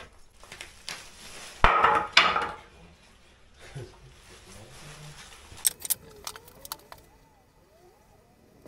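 Lengths of softwood timber being handled, knocking and scraping against each other and the floor. Two loud scrapes come about two seconds in, and a few sharp clicks around six seconds in.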